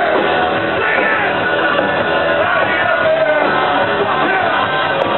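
Punk rock band playing live, with electric guitar and drums and a yelled vocal line over them.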